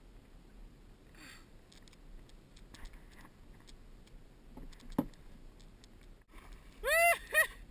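Faint water sloshing with light ticks around a kayak, one sharp click about five seconds in, then near the end two short, loud pitched calls that rise and fall in pitch.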